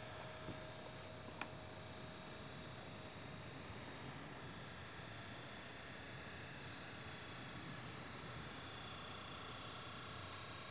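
Electric hydraulic pump of a radio-controlled Kabolite excavator whining steadily at a high pitch, swelling louder several times as the boom and bucket are worked.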